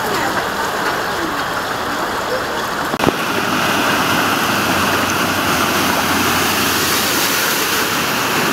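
Rushing flood water on a street. After an abrupt cut about three seconds in, a louder, steady rush and splash of water as a car ploughs through deep flood water, throwing up spray.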